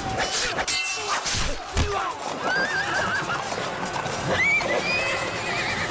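Swords clashing and swishing in the first two seconds, then horses whinnying repeatedly over the clip-clop of hooves as mounted riders come in. Music plays underneath.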